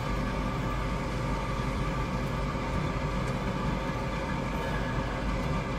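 Fume-extraction blower motor running steadily, an even hum with a rush of air as it draws smoke in through its PVC intake pipe.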